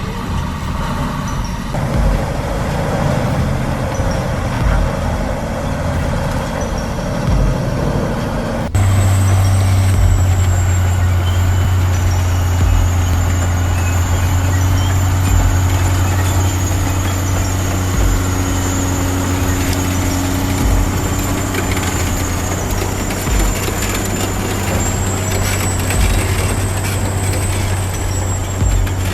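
Heavy diesel equipment running, with repeated knocks over the engine noise. About a third of the way in the sound changes abruptly to a louder, steady low engine drone with a thin high whine above it.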